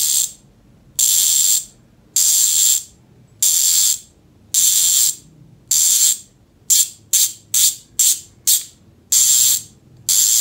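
Speedone Armorer 8-pawl mountain-bike rear hub freewheeling off the bike, its pawls clicking against the ratchet in a fast, loud, high buzz. It comes in about a dozen short spins, each around half a second long, with a quicker run of shorter spins in the middle.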